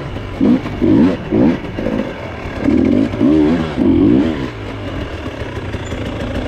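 Husqvarna two-stroke dirt bike engine revving in a series of short throttle bursts, the pitch rising and falling with each, then settling to lower steady running about four and a half seconds in.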